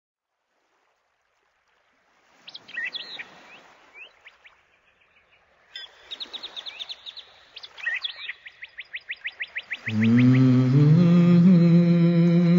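Birdsong: scattered chirps starting a couple of seconds in, then a quick run of repeated chirps, about four or five a second. Near the end, music with long held low notes starts under the birds.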